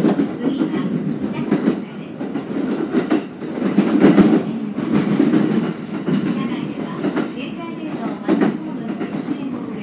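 JR East E217 series electric train running, heard from the cab at the coupling between two units. A steady low rumble carries irregular clattering knocks and rattles from the wheels and the coupled cars.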